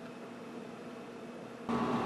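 Steady background hum and hiss with a few faint held tones. About 1.7 seconds in it jumps abruptly louder, with a higher steady tone added.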